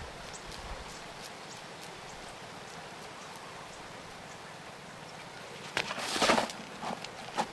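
Hand scooping wet clay out of a plastic bucket: a short, loud squelching scrape about six seconds in, followed by two smaller ones. Before it, only faint outdoor ambience with light ticks.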